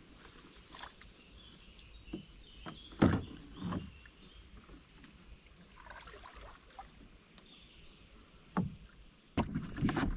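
Small green rowing boat in use on a pond: a few separate hollow knocks and bumps against the hull, the loudest about three seconds in, then a busier run of knocks and water noise starting about nine seconds in.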